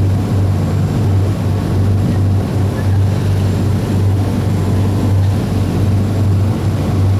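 Steady low drone of a ship's engines with rushing wind and water noise over it, as heard aboard a moving ship.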